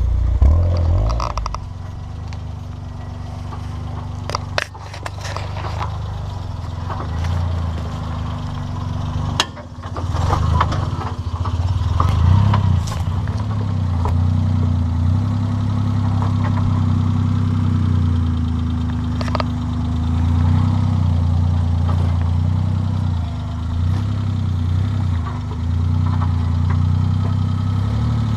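Suzuki Jimny's small engine running at low revs as it crawls over rocks, the revs rising and falling with the throttle. A few sharp knocks stand out along the way.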